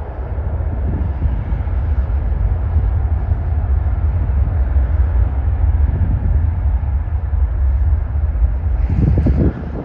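Aircraft engines rumbling as a plane passes: a loud, steady low roar that builds over the first second or two and holds, with a brief burst of noise near the end.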